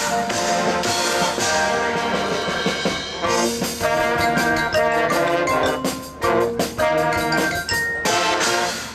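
High school marching band playing: brass chords over drums and percussion, with a cluster of sharp drum hits about six to seven seconds in, the music dropping away near the end.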